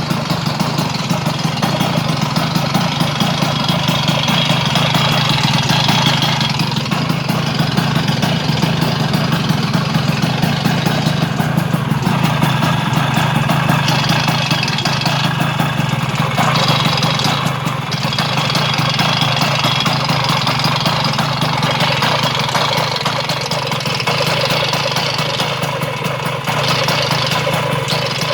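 Vespa 100 smallframe's two-stroke single-cylinder engine idling steadily with a light rattle from the flywheel. The rattle came with a newly fitted Parmakit race ignition and 1 kg flywheel, and its cause is unknown to the owner.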